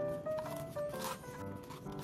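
Background music: a melody of short held notes stepping up and down over a lower accompaniment, with light percussive hits.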